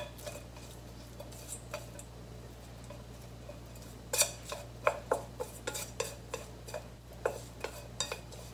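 Wooden chopsticks clicking against a stainless steel bowl while tossing boiled spinach. A few faint taps at first, then a run of sharp clicks, two or three a second, from about four seconds in.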